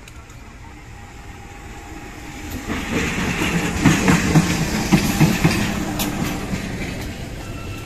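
A CC 201 (GE U18C) diesel-electric locomotive running light at low speed past close by. Its engine grows louder as it nears, and its wheels clack over the rail joints and points, loudest between about three and six seconds in, before it eases away.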